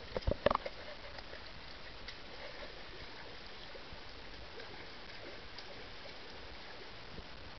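Pool water splashing in a few sharp strokes about half a second in, then a steady wash of water noise.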